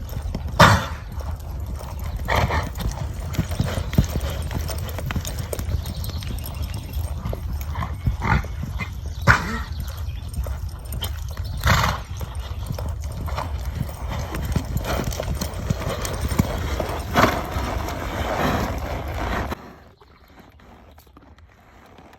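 A horse coughing, about half a dozen separate harsh coughs spread over twenty seconds, over a steady low rumble that stops suddenly near the end.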